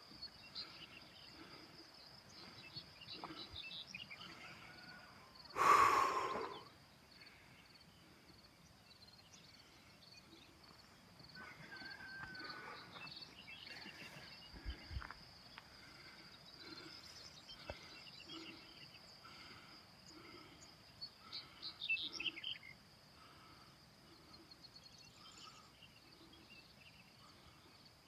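Countryside ambience: a steady high insect trill throughout, with scattered bird calls, including a quick run of falling chirps about 22 seconds in. One brief loud noise stands out about six seconds in.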